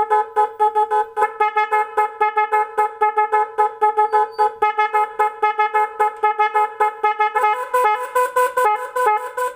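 Electronic multi-pattern motorcycle horn (12 V 'magic horn' with 18 selectable sound patterns) playing one of its patterns, a rapid, even stream of pulsing horn tones. Near the end it switches to a different pattern at a slightly different pitch.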